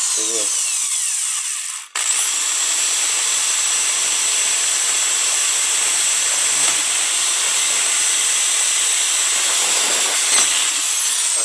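Electric drill with a larger bit boring out a hole in PVC pipe. The motor whine winds down and cuts out about two seconds in, starts again and quickly rises to a steady high speed, then winds down near the end.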